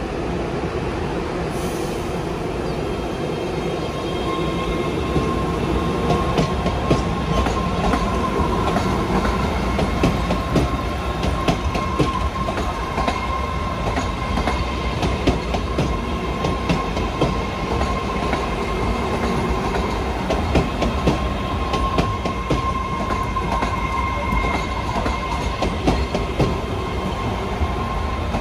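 MBTA Red Line subway train of 01800-series cars rolling slowly along the track, with many sharp clicks of wheels over the rail joints. A steady high wheel squeal joins in about four seconds in.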